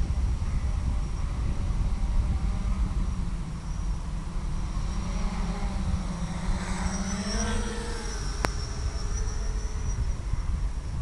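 Electric motor of an FPV model aircraft whining under heavy wind rush, its pitch climbing from about five to eight seconds in; a single sharp click near eight and a half seconds.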